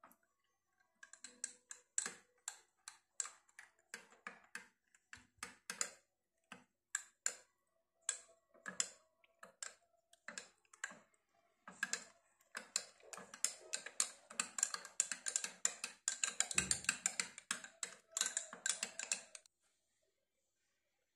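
Spoon clinking against the side of a small drinking glass while stirring a mixture. At first the clinks come separately, about two a second. For the last several seconds they come in a fast continuous run, then stop.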